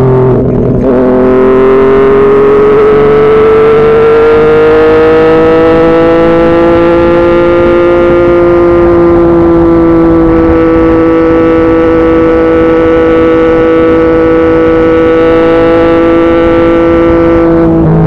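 Yamaha MT-09's inline three-cylinder engine through a Yoshimura R55 slip-on exhaust, running hard on the move. The note briefly breaks about half a second in, then rises slowly in pitch for several seconds and holds steady, over a low rush of wind and road noise.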